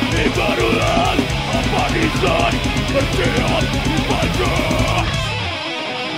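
Death metal band playing live: distorted electric guitars, bass and drums with a fast steady cymbal beat, and vocals. About five and a half seconds in, the bass and drums drop away, leaving the guitar ringing.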